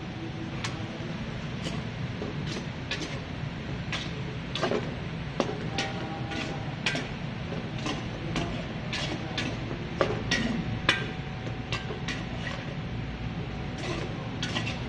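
Metal spoon clinking and scraping against a stainless steel bowl while shredded chayote is mixed, with irregular sharp knocks about one or two a second. A steady low hum runs underneath.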